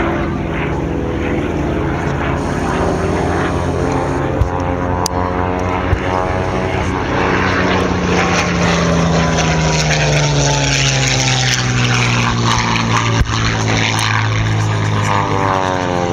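Propeller-driven warbird's piston engine passing overhead, its pitch falling steadily as it goes by, with another aircraft approaching near the end. A few sharp cracks sound over it.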